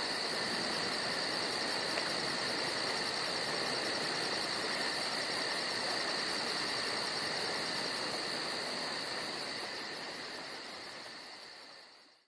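Night insects chirping steadily, with a fast even pulsing and a high steady trill, fading out near the end.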